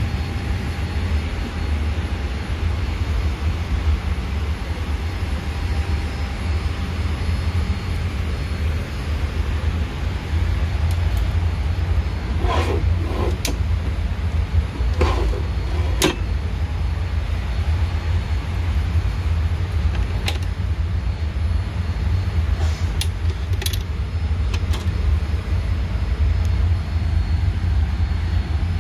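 Steady low rumble of an airliner cabin's background noise inside a Boeing 787-8, with a few short clicks and knocks around the middle and again later on.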